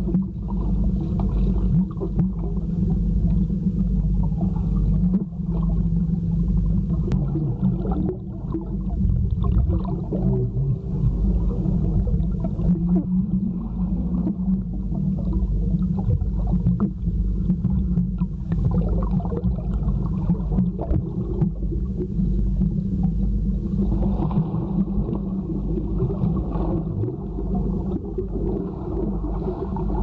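Muffled underwater sound of swimming-pool water heard through a submerged camera: a continuous low rumble with gurgling, almost all of it deep in pitch.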